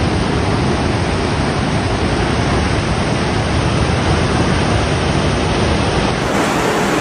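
Muddy flash-flood water rushing past in a fast torrent: a steady, loud rush of water.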